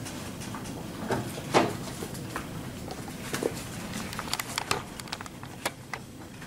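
Dry-erase marker scraping and tapping on a whiteboard as lines are drawn, heard as short squeaks and clicks over steady room noise. A louder stroke comes about a second and a half in and a quick run of clicks comes past four seconds.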